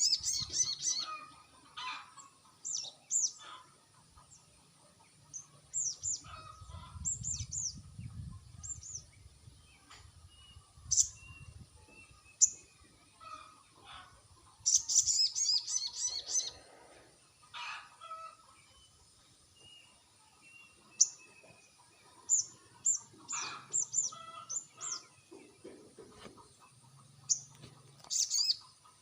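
Sogon bird song: bursts of sharp, high chirps and quick trills repeated with short pauses, used as a lure call to draw an answer from a silent sogon.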